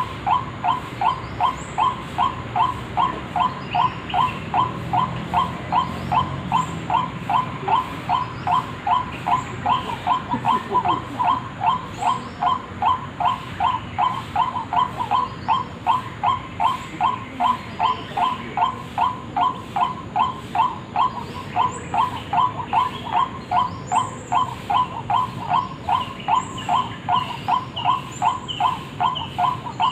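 White-breasted waterhen (ruak-ruak) lure call, one short call repeated evenly about twice a second without a break. Fainter high chirps of other birds sound now and then.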